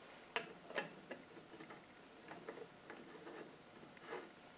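Faint, irregular clicks and light metal taps of a drain plug and its washer being handled and started by hand into an LT77 gearbox casing, the sharpest clicks in the first second.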